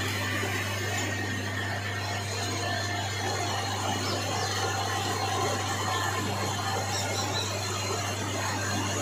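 Metal lathe running while a cutting tool cuts a V-groove into a spinning steel shaft: a steady motor hum with the noise of the cut over it.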